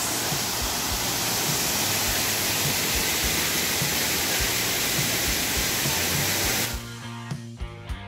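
Steady rush of a waterfall pouring into a pool, with background music under it. Near the end the water sound cuts off abruptly, leaving guitar music.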